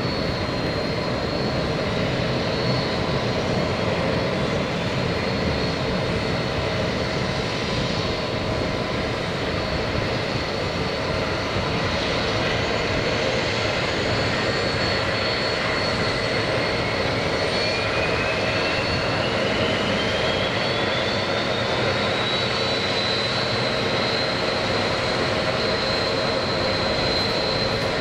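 BAe 146-200's four turbofan engines running at low power with a steady rushing noise and a high whine. About halfway through, a second whine rises slowly in pitch until it merges with the first, as one engine spools up.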